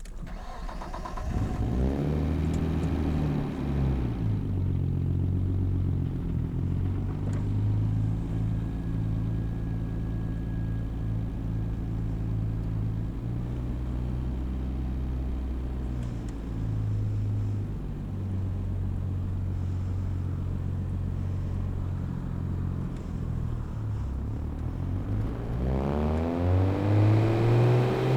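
Nissan Skyline R34 GT-T's turbocharged 2.5-litre straight-six (RB25DET) running through a full exhaust system on the move, its note stepping up and down through the gears. Near the end the revs climb steeply under hard acceleration.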